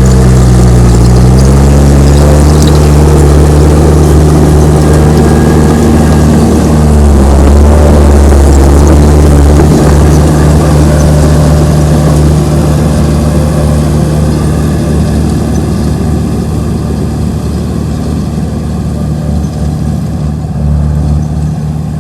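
Komatsu D31P bulldozer's diesel engine running hard. Its pitch dips and recovers in the first couple of seconds, and it grows somewhat quieter over the second half.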